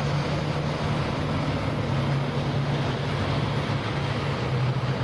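Tracked military armoured vehicles driving past: a steady low engine drone over an even rushing noise.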